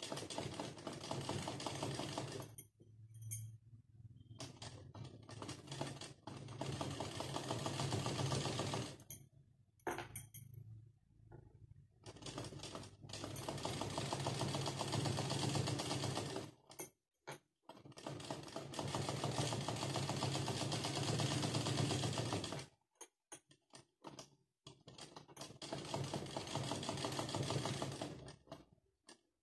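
Sewing machine stitching in runs of several seconds, a fast even clatter that stops and restarts about five times.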